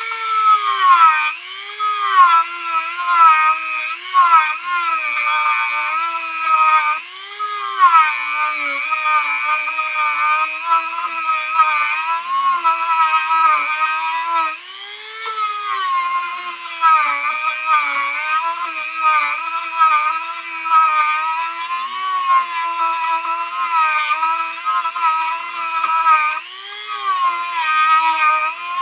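Dremel rotary tool running as its bit carves into a wooden dummy head. Its whine sags in pitch and recovers every second or two as the bit bears into the wood and eases off.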